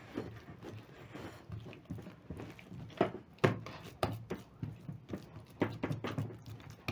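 Hands patting and turning an oiled ball of yeast dough in a glass bowl: irregular soft, wet slaps and squelches, a few a second, with two louder slaps about three seconds in.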